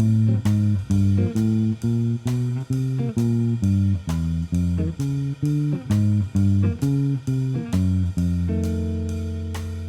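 Blues guitar music with a walking bass line, about two plucked notes a second, settling on a held chord about eight and a half seconds in that slowly fades.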